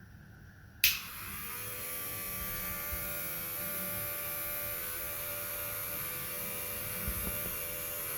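Small DC motor fan switched on with a click about a second in, spinning up briefly and then running with a steady hum.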